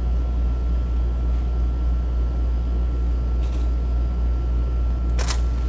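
Steady low rumble of room noise, with one sharp camera shutter click a little after five seconds in, from a Canon EOS 5D Mark III DSLR firing a shot.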